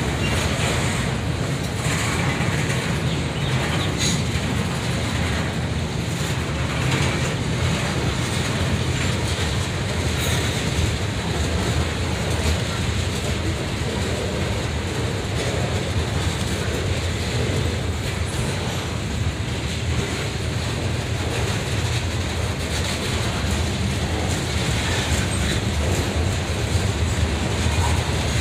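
Freight train cars rolling past close by: a steady low rumble of steel wheels on rail, with scattered clicks and clanks from the wheels and couplers.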